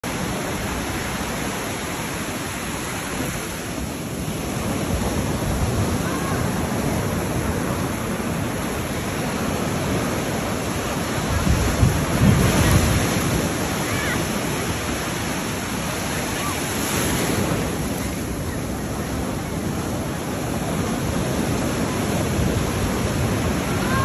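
Ocean surf breaking and washing up a sandy beach: a steady rush of waves that swells and eases, loudest about halfway through, with wind buffeting the microphone.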